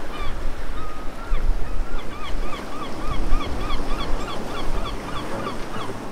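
Seaside ambience: waves washing with a low rumble, and a gull calling over it in a quick run of short cries that rise and fall in pitch, about three or four a second.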